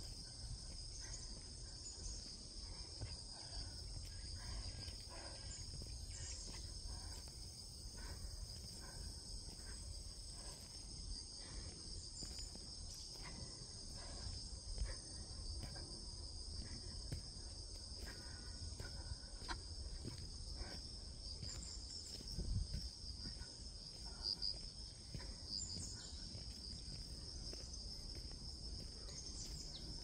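Steady insect chorus, a continuous high-pitched shrill holding two unchanging pitches. Underneath runs a low rumble with occasional soft knocks, the strongest a little past the middle.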